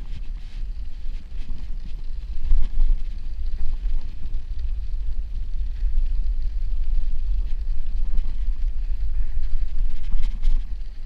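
Wind buffeting the microphone of a bicycle's handlebar camera while riding on a snow-covered road: a steady, loud, low rumble that rises and falls unevenly.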